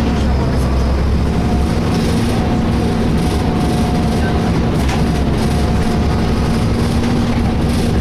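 Volvo B7LA articulated bus heard from inside the passenger saloon while under way: a steady low engine and drivetrain rumble, with two steady whining tones over it, one low and one higher.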